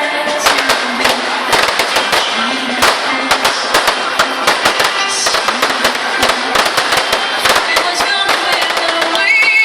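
Fireworks going off in a dense, continuous crackle of rapid pops and bangs, with music playing along underneath.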